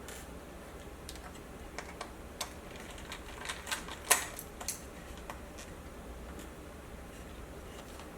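Light clicks and taps of a screwdriver working small laptop screws, scattered over the first five seconds or so, with one sharper click about four seconds in.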